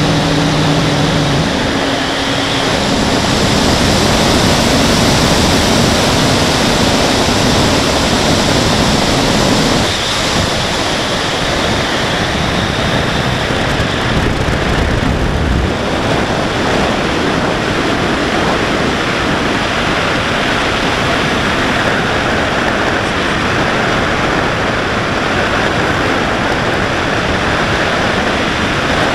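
Steady rush of wind over the onboard camera's microphone on a Carbon Z Cub RC plane in flight, with the electric motor and propeller's hum heard in the first couple of seconds.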